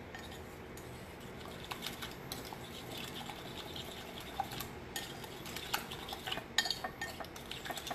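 A utensil stirring beaten eggs in a ceramic bowl, with light irregular clicks and taps against the bowl, coming thicker in the second half.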